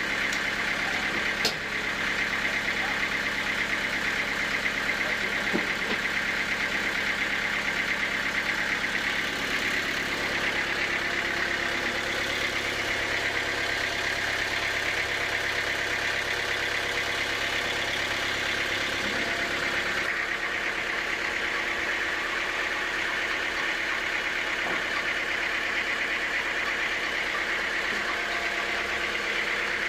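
Sawmill machinery running steadily with an even mechanical drone. There is a single sharp click about a second and a half in, and the low hum underneath drops away about two-thirds of the way through.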